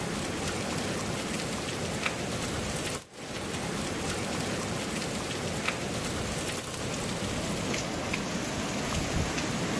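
Hurricane Irma's heavy rain and wind, a steady hiss with scattered ticks that drops out briefly about three seconds in.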